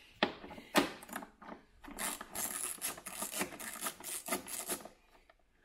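A 10 mm socket on a screwdriver handle turning a fixing nut on a Land Rover Defender's rear lamp mount, undoing it: two sharp clicks in the first second, then a run of quick rasping, scraping clicks for about three seconds.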